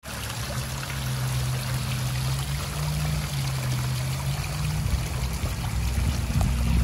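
Water spilling from drilled stone boulders of a disappearing fountain, pouring and trickling steadily onto the rocks and into a small stone basin. A low steady hum sits under the water, fading about two-thirds of the way in.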